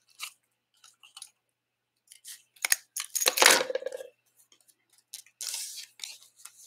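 A few small snips of craft scissors through metallic foil paper, then crinkling and rustling of the foil pieces being handled, loudest about three seconds in, with a softer rustle near the end.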